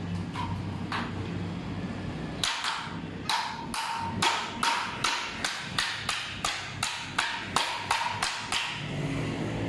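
A claw hammer strikes a wooden block held against the end of a metal shutter guide rail, about fifteen steady blows at roughly two and a half a second starting a couple of seconds in. Each blow has a short metallic ring.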